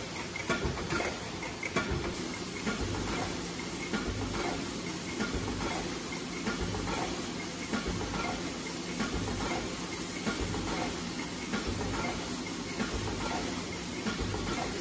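Choctaek C1300 aluminum foil container press line running in automatic production: a steady repeating clatter of press strokes and the stacking mechanism, with regular ticks and thumps, over a continuous hiss of air.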